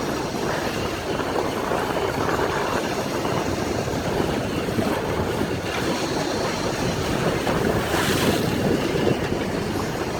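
Steady rush of a fishing boat's engine and the water along its hull, with wind on the microphone. A brief louder hiss comes about eight seconds in.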